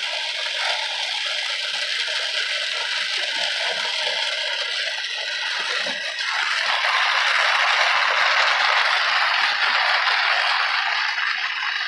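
Heavy rain pelting a moving car's roof and windshield, with wet-road tyre noise, heard from inside the cabin. A steady hiss that grows louder about halfway through.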